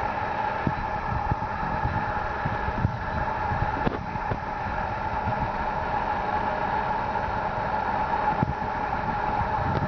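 A steady mechanical hum with several fixed tones, like a running motor or fan, and soft low knocks now and then.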